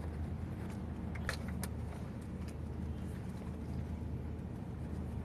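Steady low rumble of a car heard from inside its cabin, with a couple of light clicks about a second in.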